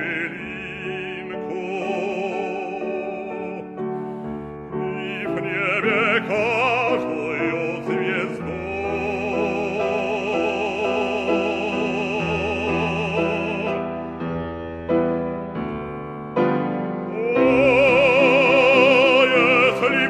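Operatic bass voice singing a slow classical romance with wide vibrato over instrumental accompaniment, holding one long note through the middle and swelling loudest near the end.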